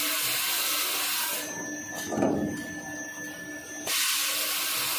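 Automatic toilet-paper log saw running with a steady hum, broken by long hisses as its circular blade cuts through the paper log: one fades out near the middle and another starts near the end. A dull thump comes about two seconds in as a cut roll drops.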